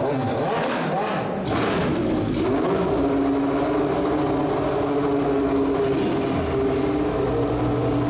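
Toyota TS010 Group C racing car's 3.5-litre V10 accelerating, its pitch rising for about two seconds, then running at steady high revs.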